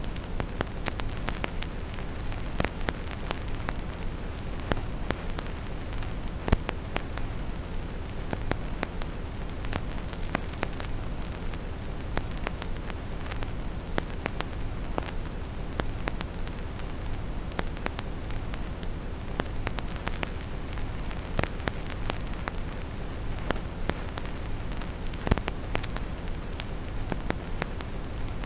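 Vinyl record crackle with no music: scattered, irregular clicks and pops from a needle in the groove, over steady brown noise strongest in the low end. Two louder pops stand out, about six seconds in and near the end.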